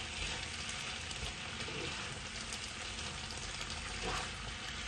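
Pieces of chicken breast frying in a pot, a steady sizzle.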